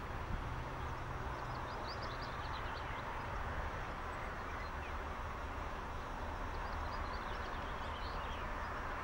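Class 45 'Peak' and Class 25 diesel locomotives idling, a steady low rumble. Birds chirp over it a couple of seconds in and again near the end.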